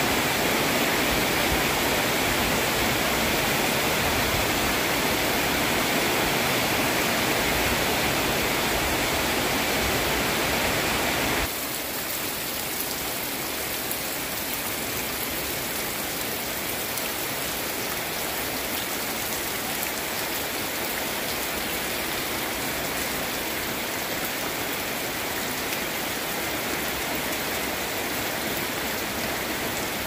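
Heavy rain pouring down in a storm, a dense steady hiss. About a third of the way in it drops suddenly to a quieter, thinner rain sound.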